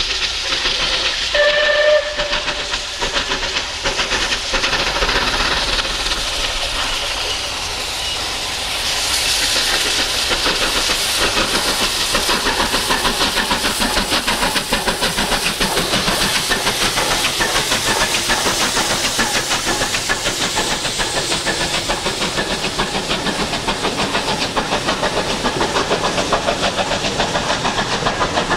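Southern Railway Battle of Britain class three-cylinder steam locomotive climbing a steep gradient under heavy load. It gives a short whistle about two seconds in, then its exhaust beats and steam hiss grow louder from about nine seconds and keep up a fast, steady rhythm as it passes.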